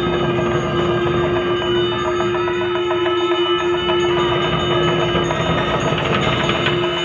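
Tibetan Buddhist monastic ritual music: a conch shell blown in one long, steady note, over a frame drum and metal percussion struck in quick repeated beats.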